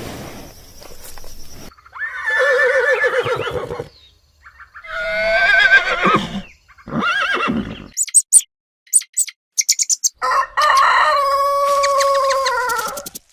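A series of animal calls: several pitched cries, then a run of short high chirps, and near the end one long held call that drops in pitch as it ends.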